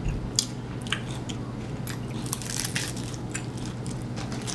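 Close-up biting and chewing of crisp fried corn tortilla from tacos and nachos, a run of sharp crunches, densest a little past the middle.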